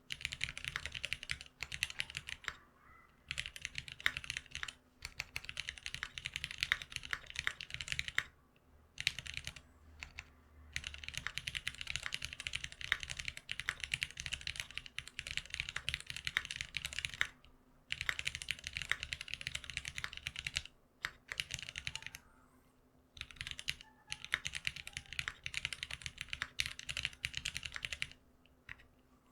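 Typing on a GeonWorks F1-8X custom keyboard fitted with lubed Cherry retooled Black linear switches on 65 g long springs: fast runs of keystrokes broken by short pauses.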